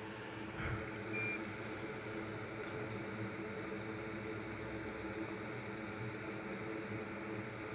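Hot air rework station's blower running with a steady hum and airy hiss as the station heats up. A soft knock comes just under a second in, and a short high beep about a second in.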